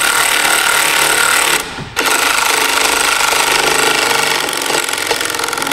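Cordless electric ratchet running down a nut on the battery's cable clamp: a rapid motor buzz, stopping briefly about one and a half seconds in, then running again until near the end.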